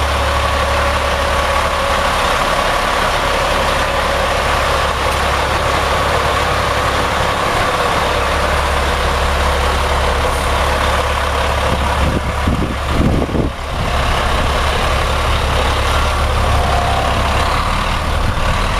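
Freightliner dump truck's diesel engine idling steadily.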